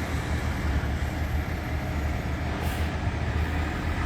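Steady low rumble of a large vehicle's engine running, with street traffic noise.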